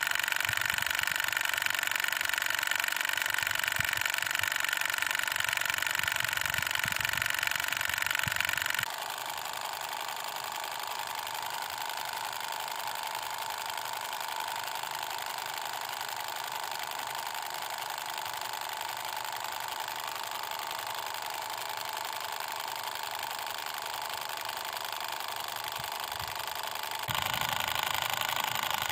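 Miniature diesel water pump model running with a steady, high-pitched whir from its small motor. It turns quieter about nine seconds in and louder again near the end.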